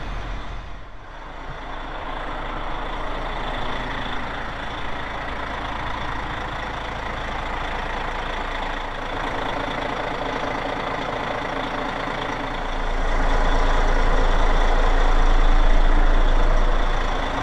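Motor yacht's twin inboard engines idling steadily. The low rumble grows louder about 13 seconds in and holds for several seconds.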